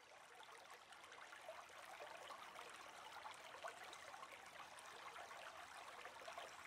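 Faint, steady running water of a mountain stream, growing a little louder over the first couple of seconds.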